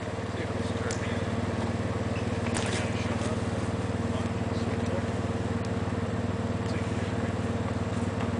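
Yamaha ATV engine idling steadily, with a few faint clicks over it.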